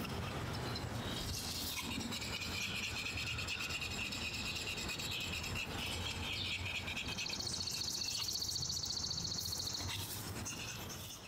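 Birds chirping and a high trilling call outdoors. The trill is steady at first and turns to a faster pulsing trill about seven seconds in, which stops about ten seconds in. A low rumble runs underneath, and the sound fades out at the end.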